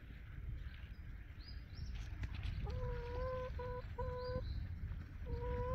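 Chickens calling with a few drawn-out, steady-pitched notes: a held note broken into three pieces partway through, then another slightly rising one near the end, over wind rumble on the microphone.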